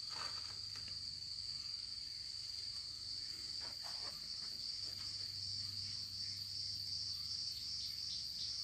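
Steady high-pitched chorus of insects singing, with a faster pulsing chirp joining near the end. A couple of faint taps come about four seconds in.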